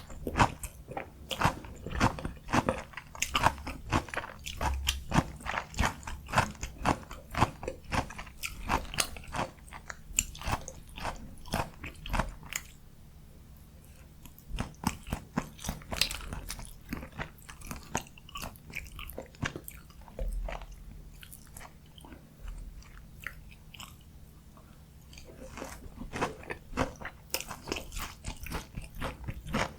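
Close-miked eating of a breaded, fried Korean pork cutlet (donkkaseu) topped with kimchi and cheese: a quick run of crisp crunching bites and chewing, easing to softer, sparser chewing for a stretch in the middle, then crunching more densely again near the end.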